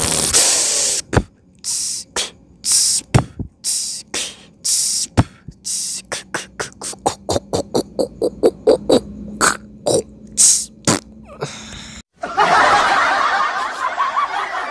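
Human beatboxing: sharp mouth-made percussion hits, sparse at first, then speeding up into a fast run of clicks, with a low hum held beneath from about six seconds in. About twelve seconds in it cuts off abruptly and a loud, rushing noise takes over.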